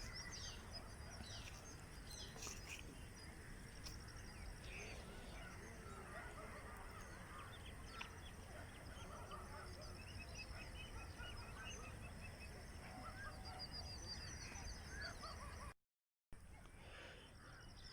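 Faint background ambience with small distant bird chirps and trills, with a brief drop to dead silence near the end.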